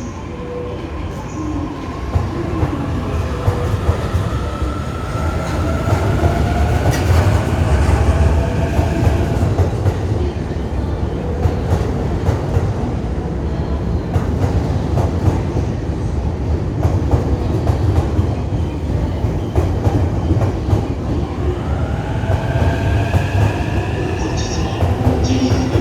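E233 series electric multiple unit pulling out and gathering speed: its traction motors give a rising whine that comes twice as motor cars pass, over a steady rumble and the clack of wheels over rail joints.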